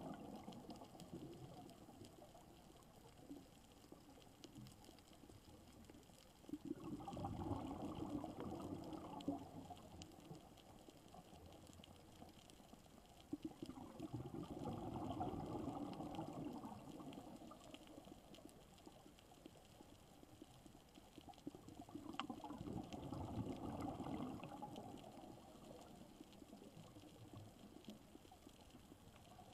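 Scuba diver's exhaled air bubbling out of the regulator underwater, in three gurgling bursts about seven or eight seconds apart, with faint underwater hiss between breaths.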